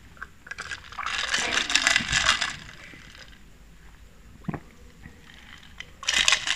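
Iced Milo slurped through a plastic straw, with ice cubes rattling and clinking in the glass, in two bursts: about a second in and again near the end.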